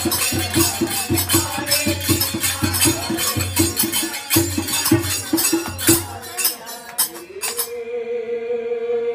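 Kirtan music: a dholak drum beats a fast, even rhythm of about five strokes a second under jingling hand cymbals, harmonium and voices. The music breaks off about six to seven seconds in, and a single long chanted note is held through the end.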